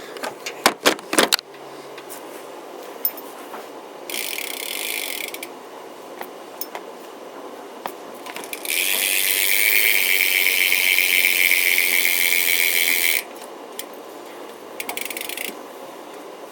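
BMX rear wheel's Salt hub ratcheting as the wheel freewheels, a fast dense buzz of the pawls. There is a short buzz about four seconds in, a long loud one from about nine to thirteen seconds, and a brief one near the end, after a few knocks at the start.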